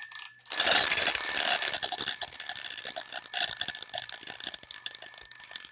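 Accurite wind-up alarm clock's alarm going off: the hammer rattles rapidly against the bells in a continuous loud ring, with a brief dip near the start. The freshly reassembled strike mechanism is working correctly.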